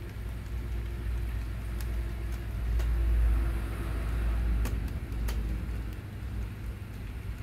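Steady rain pouring onto a paved courtyard, with a low rumble that swells over the first few seconds and fades away about six seconds in, and a few sharp drip clicks.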